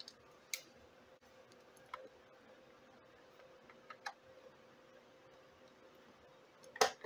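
A few small clicks and light knocks from handling a digital photo frame and plugging the power adapter's cable into its back, with a louder knock near the end.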